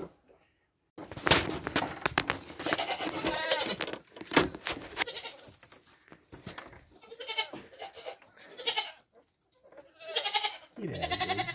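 Goat bleating several times, with scattered knocks and rustling between the calls.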